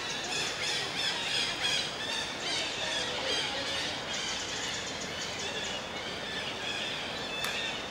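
A steady chorus of many short, high-pitched squeals and chirps from animals, overlapping one another, with a rapid ticking chatter joining in the middle.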